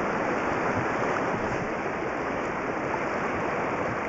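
Steady rushing of rough, fast-flowing river water around a small boat, mixed with wind on the microphone.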